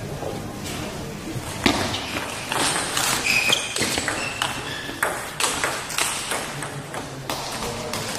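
Table tennis rally: the celluloid-type ball clicking back and forth off the rackets and the Cornilleau 740 table in quick, irregular hits, which stop about seven and a half seconds in.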